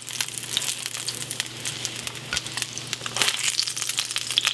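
Pork chops sizzling and crackling in hot oil and butter in a frying pan, a dense hiss full of fine pops.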